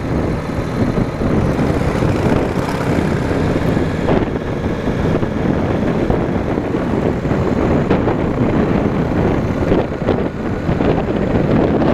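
A V-twin cruiser motorcycle's engine running steadily while riding, mixed with wind noise on the microphone.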